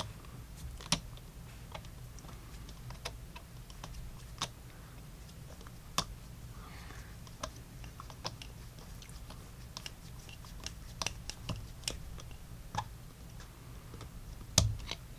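Irregular small clicks and taps of a screwdriver and small steel revolver parts being handled while the grip frame screws are fitted, over a faint steady low hum.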